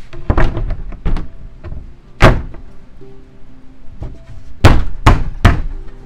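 Wooden thunks as a plywood bottom panel is knocked down onto the pins of knockdown connectors: a few in the first second, a loud one about two seconds in, and three close together near the end. Background music plays underneath.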